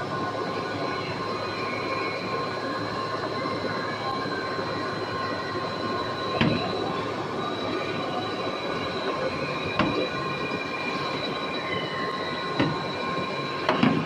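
Shrink-sleeve labeling machinery running: a steady mechanical noise with a constant high whine. A few sharp knocks are heard, one about six seconds in and three more toward the end.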